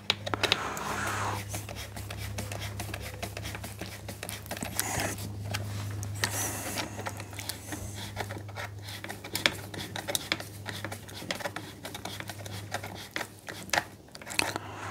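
Small clicks, taps and scrapes of parts being handled and fitted as a Husqvarna 142 chainsaw is put back together, over a steady low hum.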